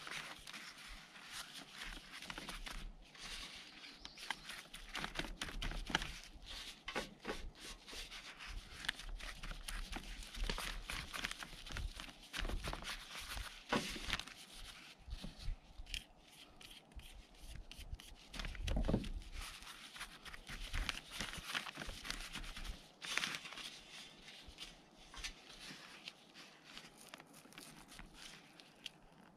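Rustling and crinkling of a plastic zip bag and foam meat tray under gloved hands, with rubbing and small crackles as herbs are pressed onto raw meat and rosemary is stripped from its stems; a duller bump about two-thirds of the way in.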